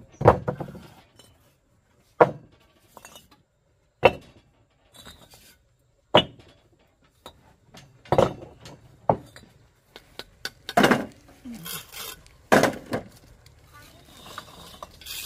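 Hard objects knocking together in sharp clinking strikes, about one every two seconds, coming closer together near the end.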